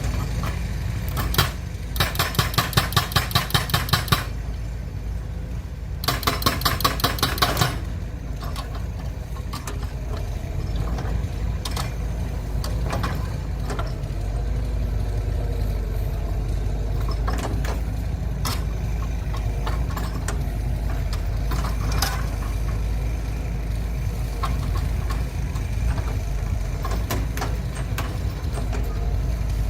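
A steady low engine rumble, with two bursts of rapid clattering about two and six seconds in and scattered knocks afterwards.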